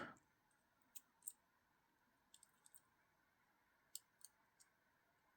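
Faint, scattered clicks and ticks, about seven in all, from small metal parts of a Benchmade Mini Griptilian folding knife being handled as a pivot washer is fitted during reassembly.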